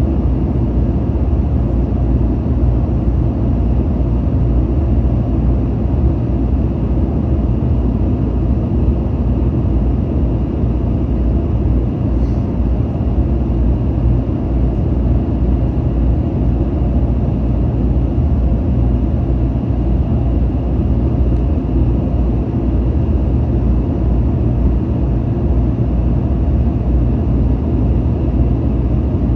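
Steady cabin drone of a Boeing 737-900ER in flight: the hum of its CFM56-7B turbofan engines and the airflow, heard inside the cabin from a forward window seat.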